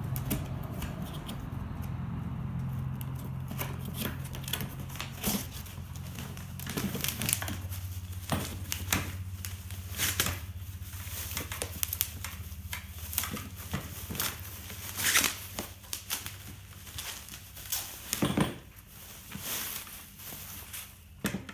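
Cardboard box and plastic packaging being opened and unpacked by hand: scattered crinkling, rustling and tearing with irregular knocks and clunks, over a steady low hum.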